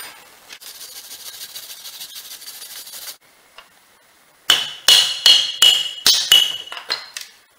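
Front brake disc of a BMW 5 Series E60 being struck with a hammer to knock it off the hub: about eight sharp metallic blows in quick succession, each one making the disc ring. A steady hiss runs for a few seconds before the blows begin.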